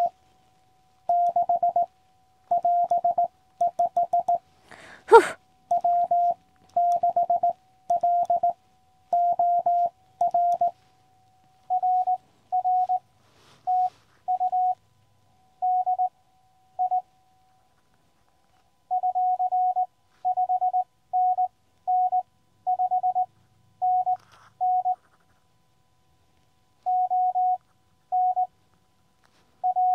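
Morse code from a QCX Mini CW transceiver: a single steady mid-pitched tone keyed on and off in dots and dashes, with one sharp click about five seconds in.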